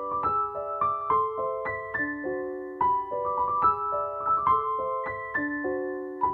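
Background piano music: a melody of ringing notes, about three a second, each overlapping the next.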